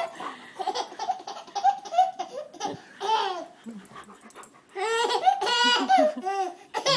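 Baby laughing in repeated high-pitched bouts, loudest and longest about five to six seconds in.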